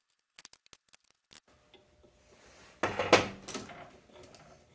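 Light metal clicks, then a louder burst of clanking and scraping about three seconds in, as a steel valve spring compressor is handled and fitted onto a Slant Six cylinder head.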